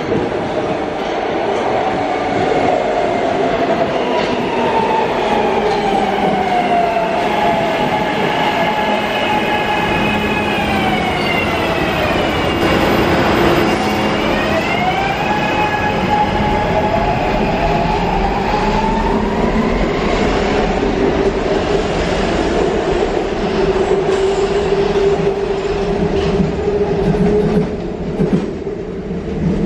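SEPTA ADtranz M4 subway-elevated train running through a station over steady rail rumble and wheel clatter. Its electric propulsion whine falls in pitch as the train slows, bottoms out about halfway through, then rises again as the train picks up speed.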